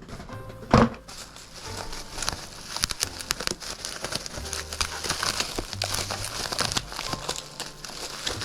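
Crinkling and rustling of plastic packaging handled close by, full of small clicks, with one sharp knock about a second in.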